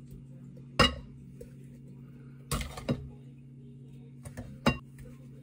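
Glass bowl and swing-top glass jar knocking and clinking while passion fruit pulp is poured between them and the bowl is set down on the counter: one sharp clink about a second in, then a few lighter knocks, over a steady low hum.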